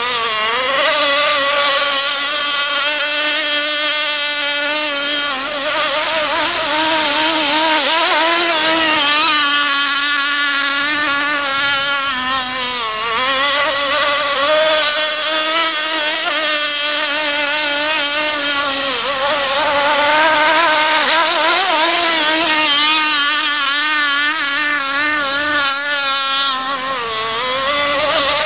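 Radio-controlled speedboat running flat out on the water: a loud, high, wavering motor whine whose pitch dips briefly about four times and comes back up.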